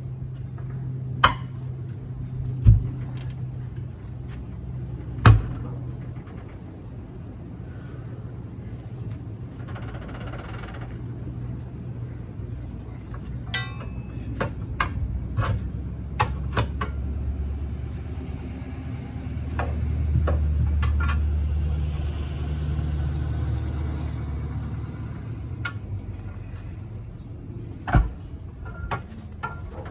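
An engine running steadily at a low hum, rising to a heavier rumble for a few seconds about two-thirds of the way through, under repeated sharp metallic knocks and clanks, loudest near the start and near the end.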